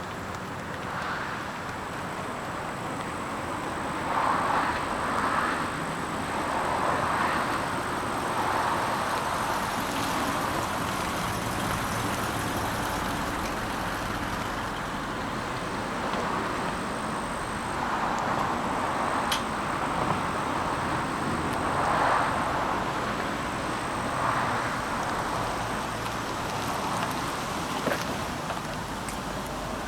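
Outdoor vehicle and traffic noise: a steady rushing that swells and fades every few seconds, with a thin, steady high-pitched whine above it.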